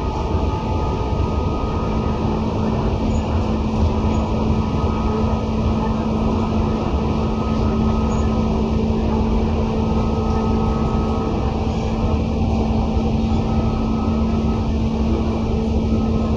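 Tobu 10030 series electric train running at speed, heard inside the car near its line breaker: a steady rumble of wheels and running gear with several steady tones, one low hum setting in about two seconds in.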